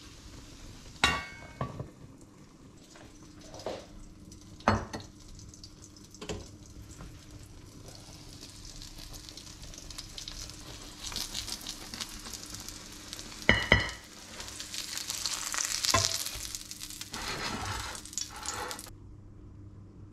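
Omelette sizzling in a frying pan, with a series of sharp clinks and knocks from the metal pan lid and pan; the loudest is a metallic clink with a short ring about two-thirds through. The sizzle grows denser and crackly in the later part.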